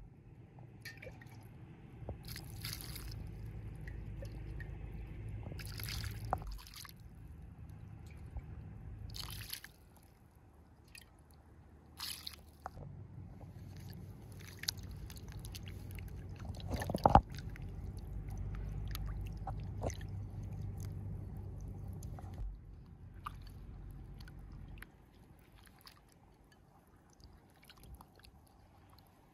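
Hands washing cubes of raw meat in a bowl of water: wet squelching and sloshing with drips and scattered small clicks, and one sharper knock a little past halfway.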